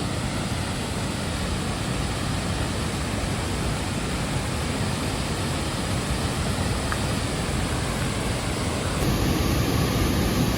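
Steady rushing roar of a large waterfall. About nine seconds in it cuts to a slightly louder rush.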